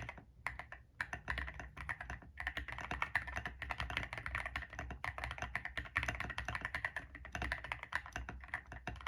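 Steady, fast typing on an ilovbee i61 keyboard with stock WS Morandi linear switches and MDA-profile keycaps. The board is o-ring mounted and tape-modded, with silicone and polyfill dampening. Short pauses come near the start and at about two seconds.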